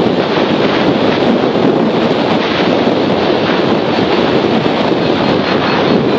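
Steady, loud rush of airflow buffeting the microphone of a camera on a hang glider in gliding flight.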